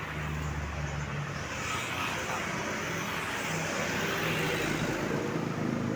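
Road traffic: a low engine hum, then a vehicle passing with a swell of tyre and engine noise about two seconds in, the overall sound growing louder toward the end.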